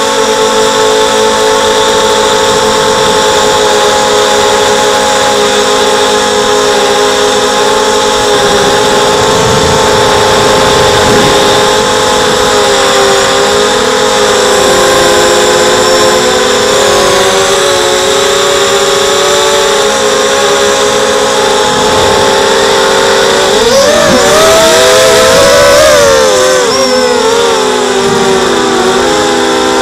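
Four brushless motors and propellers of an XHover 230 mini quadcopter whining in flight, heard from its onboard camera: several close pitches held together that drift slowly. About three-quarters of the way through they swing up and wobble as the throttle is worked, then settle lower.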